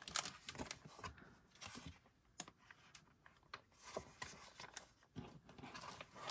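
Faint, scattered clicks and light rustling of LEGO set packaging being handled: bags of parts and paper being moved and set down.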